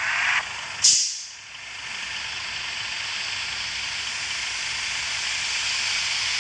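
Bus air brakes letting off a short, sharp hiss about a second in, followed by steady vehicle noise.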